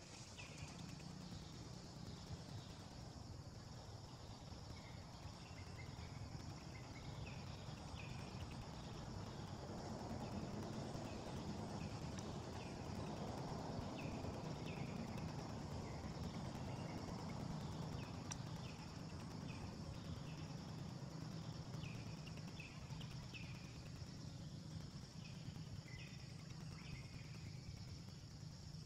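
Faint outdoor ambience: a steady low hum and a steady high drone, with short high chirps or squeaks coming about once a second throughout.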